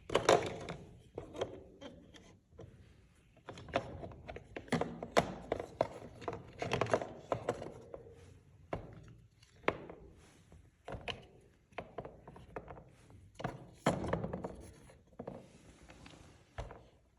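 Small toy animal figures being tapped and handled: an irregular run of light knocks and clicks, a few a second, in clusters with short pauses.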